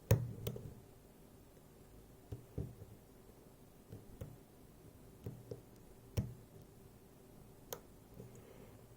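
Scattered light clicks and taps of a flag pick working the pins of a Miwa JN dimple lock held under heavy tension, about ten over the span, the first the sharpest.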